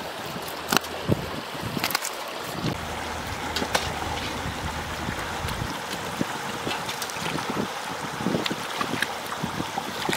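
Hands digging and squelching in wet mud, with scattered short wet slaps and clicks. Steady wind noise on the microphone and running water lie underneath.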